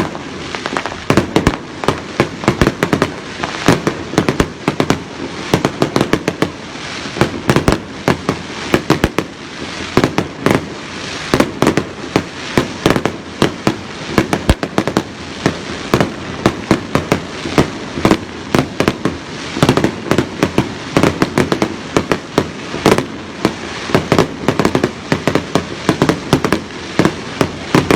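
Fireworks display going off in rapid succession: many sharp bangs several a second over dense continuous crackling.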